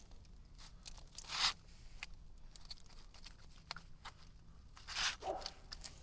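Knife cutting into a cooked steak: two short scraping rasps, about a second and a half in and again about five seconds in, with small clicks between.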